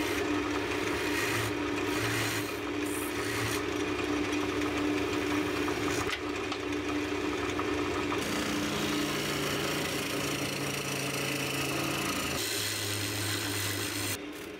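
Wood lathe running while a turning gouge cuts the inside of a small cherry bowl: a steady scraping, shaving hiss from the tool over the lathe motor's low hum.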